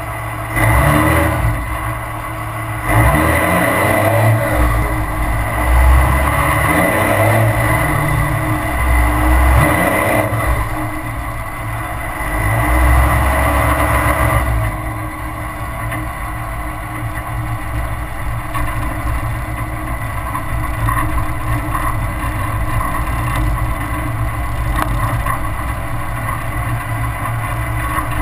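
Cummins turbo-diesel of a 2002 Dodge Ram running through a 4-inch straight-pipe exhaust, tuned up with an Edge Comp module, pulling hard in rising surges during the first half. From about halfway on it runs more steadily.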